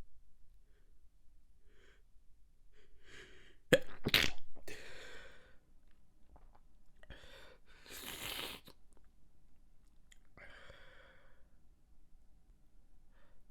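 A person stifling a sneeze: a few faint catching breaths, then a sudden, sharp sneeze held back through the nose and mouth about four seconds in, the loudest moment. Quieter breathy exhales follow twice later.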